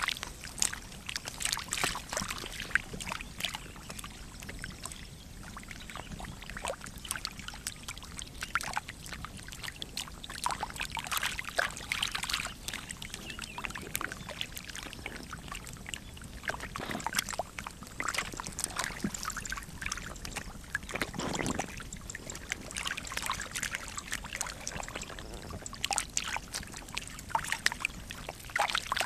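Large fish thrashing in a shallow muddy puddle: irregular splashing and sloshing of water, with bursts of heavier splashes.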